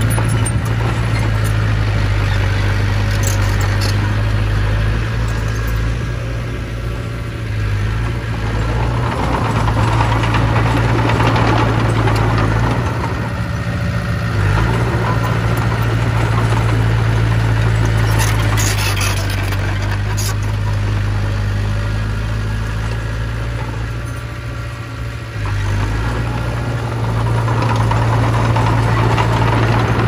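Komatsu D20P crawler bulldozer's diesel engine running steadily under load as the machine pushes soil with its blade, the engine easing off briefly twice and picking up again.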